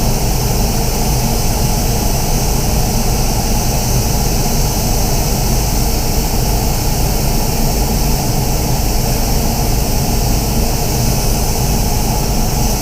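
Loud, steady rush of air in a paint spray booth, an even hiss over a low rumble that runs without a break.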